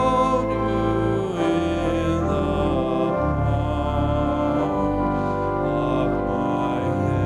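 Slow music of long held chords that change every second or two.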